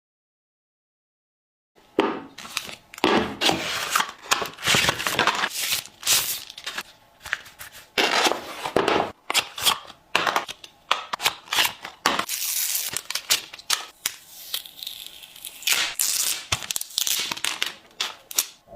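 Near silence for about the first two seconds, then a smartphone's retail box and its plastic wrapping being handled and opened: a long run of short tearing, rustling and scraping sounds.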